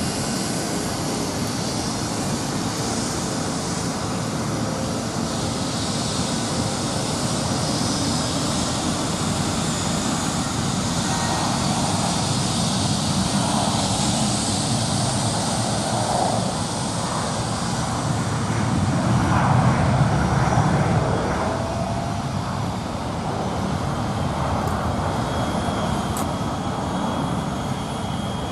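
Rolls-Royce RB211-535 turbofan of a Boeing 757 running on the ground during an engine run: a steady, loud jet rush that swells louder about twenty seconds in and then eases back.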